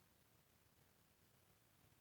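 Near silence: faint hiss and low hum.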